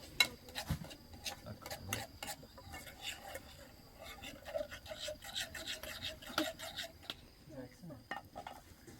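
Irregular scraping and rubbing strokes with sharp clicks, several a second, easing off near the end.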